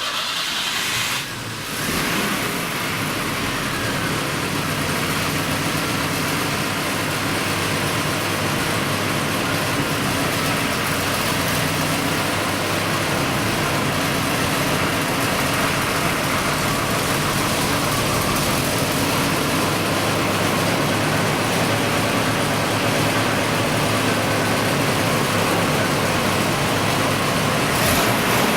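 GAZ Volga car engine with a K151 carburettor running steadily, a little louder from about two seconds in.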